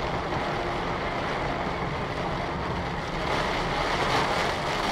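Heavy rain falling hard on a small car's roof and windshield, heard from inside the cabin as a dense, steady hiss.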